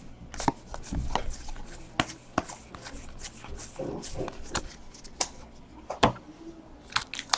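Stiff chrome trading cards clicking and sliding against each other as a stack is flipped through by hand: irregular light snaps and taps, a few a second, with one sharper click about six seconds in.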